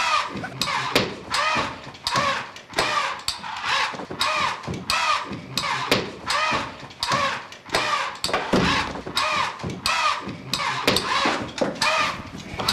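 A rhythmic mechanical clicking, just under two strokes a second and even throughout. Each click is followed by a short squeak.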